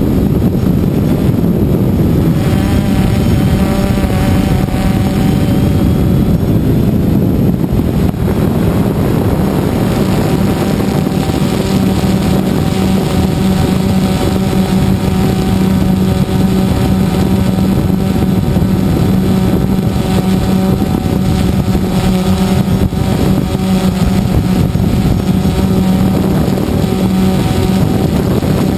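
Multirotor drone's electric motors and propellers running steadily in flight, heard close up from its own camera: a loud, even buzzing hum with a strong low tone and several higher tones above it.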